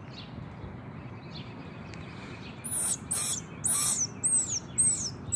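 Baby black squirrel giving a run of high-pitched, downward-sliding squeaks, about two a second, starting about halfway through. It is a cry for its mother.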